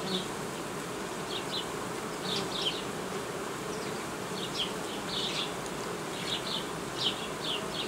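Honey bees buzzing steadily around an open hive, with short high-pitched sounds coming and going throughout.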